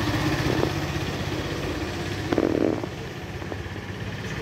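An engine idling steadily with a low, even hum, and a brief louder sound about two and a half seconds in.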